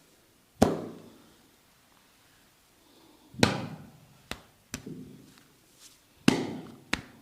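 Sharp slaps of a barber's hands on a client's head and shoulders during a massage. Three loud slaps come about three seconds apart, with a few lighter taps between them.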